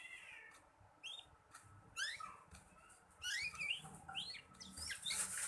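Young black-red canary twittering in soft, short, rising chirps, the early practice song of a juvenile learning to sing. The chirps grow busier about halfway through, with a brief rustle near the end.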